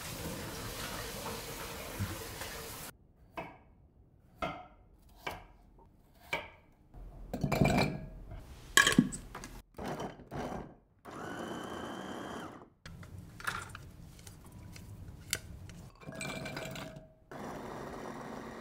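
Electric food chopper running in three short bursts as it minces carrots and onion in its glass bowl, with knocks and clatter between the bursts.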